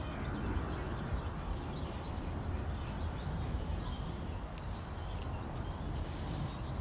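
Steady low rumbling background noise, with a few faint short high chirps and ticks about two-thirds of the way in.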